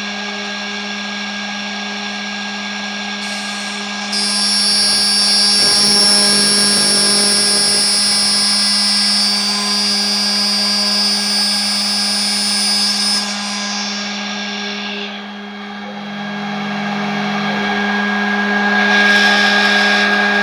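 CNC router spindle running, with a small end mill cutting a pocket into a wooden block. About four seconds in it grows louder with a high whine, which eases off around fourteen seconds before the sound builds again near the end.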